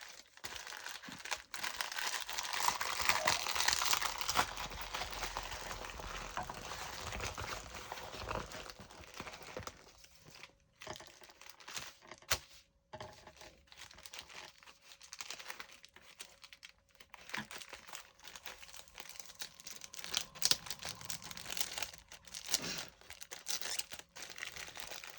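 Plastic packaging of a diamond painting kit crinkling and rustling as it is handled, loudest in the first few seconds and then coming in scattered crackles.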